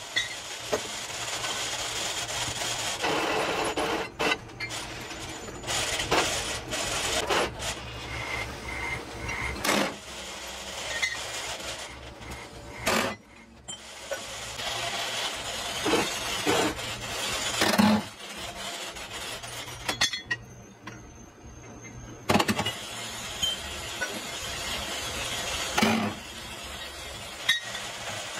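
Irregular sharp metal clanks and knocks from steel excavator track chain links and pins being handled and struck, over a steady workshop background noise. The sound drops out briefly a little after two-thirds of the way in.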